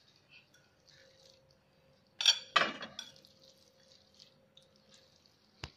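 A metal fork clinking against a plate of noodles: two quick clinks about two seconds in and a short click near the end, over a faint steady hum.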